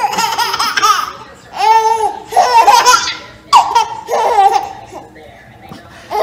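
Baby laughing in about four loud, high-pitched bursts with short pauses between them.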